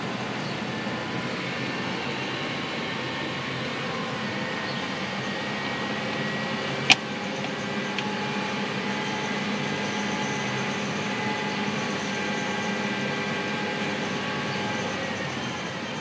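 A vehicle's engine, heard from inside the cab, running steadily at a raised idle of around 2,000 rpm held by a newly installed vernier throttle cable. A single sharp click sounds about seven seconds in. Near the end the revs start to drop.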